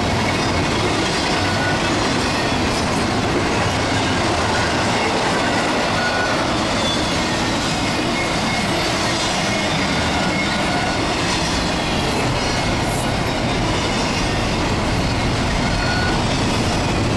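Double-stack intermodal freight train cars rolling past steadily: a continuous loud rumble of steel wheels on the rails.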